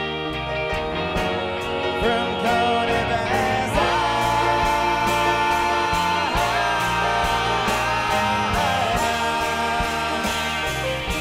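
Live band playing a guitar-based, 1960s-style rock song. A lead line bends in pitch about two seconds in and again around six seconds in.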